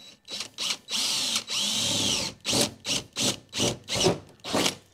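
Cordless DeWalt 18V XR drill with a 5 mm bit drilling through a car's sheet-metal boot lid. It runs in two short bursts, then a longer run of about a second and a half with a wavering whine, then about six short trigger pulses.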